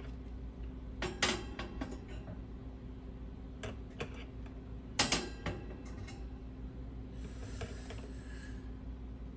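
Light metallic clicks and clinks over a steady low hum: a couple of sharper clinks about a second in and about five seconds in, with fainter ticks between.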